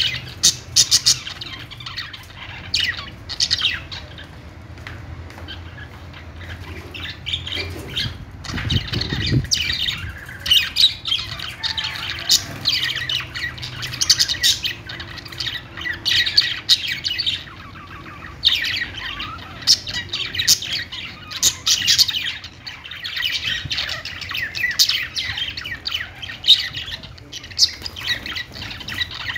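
Budgerigars chirping and squawking in a continuous, irregular stream of overlapping warbled calls from several birds.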